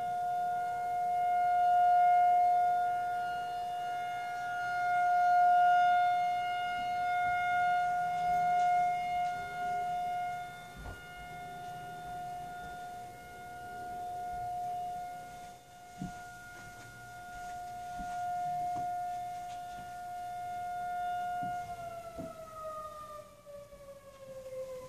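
Federal Signal 2001-SRN outdoor tornado warning siren sounding its steady single-tone alert in a test activation, the level rising and falling every few seconds as the horn rotates. About 22 seconds in, the pitch starts to fall as the siren winds down.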